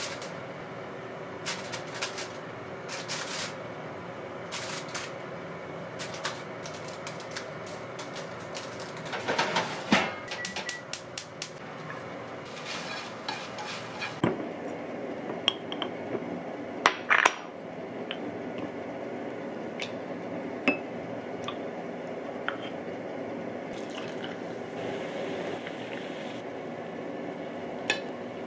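A wooden spatula and chopsticks scraping and knocking against a frying pan as spaghetti is tossed and lifted out, with scattered clicks and several sharp knocks about two-thirds of the way through, over a steady low hum.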